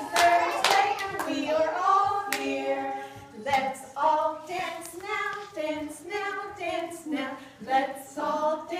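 Adults singing a children's song together without instruments, with hands clapping over the first second or so.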